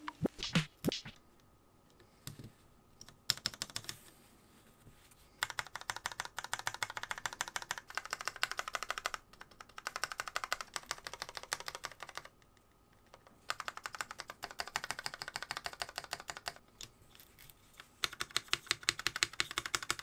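Keycaps on PCB-mounted keyboard stabilizers pressed over and over, giving fast plastic clicking and clacking in several runs of a few seconds, with short pauses between them.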